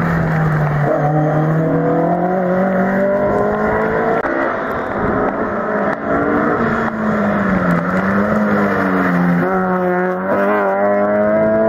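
Rally cars going past at full throttle on a stage, one after another. The first engine's note climbs steadily for about three seconds. The second, a Honda Civic hatchback, comes in about six seconds in and its note dips and rises again through the rest.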